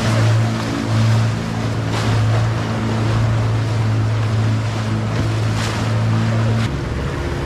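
A boat engine runs at a steady low hum, with wind on the microphone and rushing water around the hull. Near the end the engine note changes to a slightly higher pitch.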